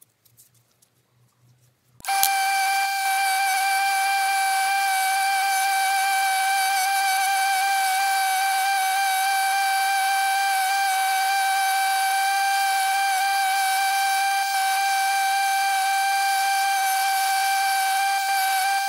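Pinnacle bench grinder running with a wire wheel fitted, a loud, steady high-pitched whine with overtones. It starts abruptly about two seconds in.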